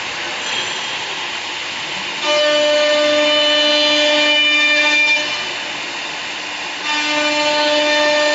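MSK37225A CNC mortising machine cutting mortises in wood: a steady pitched whine from the spindle with rough cutting noise. It grows louder twice, about two seconds in for some three seconds and again about seven seconds in, with quieter running between.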